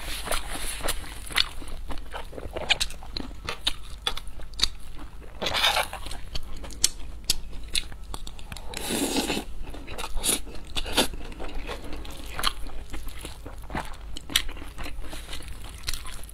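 Close-miked eating sounds from a lapel microphone: a person crunching and chewing mouthfuls of egg fried rice with diced vegetables, with many sharp crisp clicks and a couple of longer, louder crunches.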